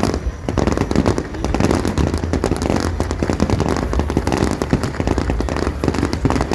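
Fireworks display going off: a dense, unbroken run of pops, bangs and crackling over a low rumble.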